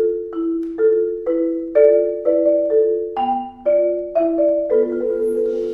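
Background music: a mallet-percussion instrument such as a marimba plays a slow, even melody of two-note chords, a new chord about every half second.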